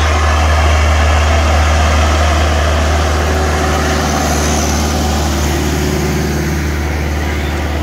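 Massey Ferguson 385 tractor's diesel engine running steadily under heavy load as it drags a disc plough through the soil, a deep, even drone.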